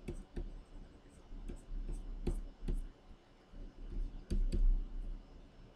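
Stylus pen tapping and stroking on a Wacom Cintiq drawing display: a dozen or so sharp plastic clicks at uneven intervals as short brush strokes are laid down, loudest about four seconds in.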